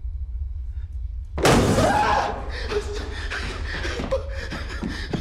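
A low steady rumble, then about a second and a half in a sudden loud crash or slam that fades over about a second, followed by a run of irregular knocks and rustling noise.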